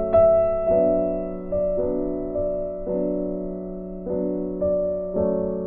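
Slow, gentle background piano music: chords struck about once a second, each fading away before the next.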